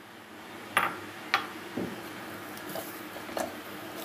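A few light clicks and knocks of a glass mixing bowl being handled on a plastic chopping board as rested dough is worked by hand, over a faint steady hum.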